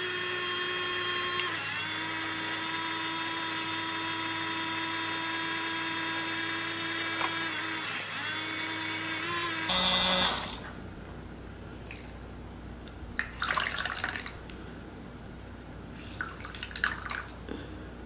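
Small electric motor of a tiny battery-operated washing machine running with a steady high whine as it spins a beauty sponge in water, its pitch shifting slightly a couple of times. It stops about ten seconds in. After that come a few short, soft wet handling sounds as the soaked sponge is pushed down and lifted out of the drum.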